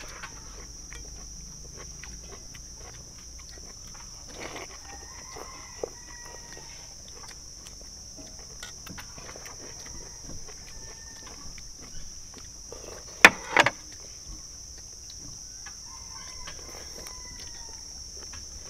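A rooster crowing faintly three times over a steady high insect buzz, with light clicks throughout and two sharp knocks about two-thirds of the way through.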